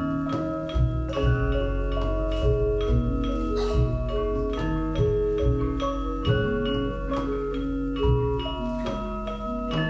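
Central Javanese gamelan playing: bronze metallophones and kettle gongs ring out a stepwise melody of sustained metallic tones, over steady low strokes of the kendhang drum.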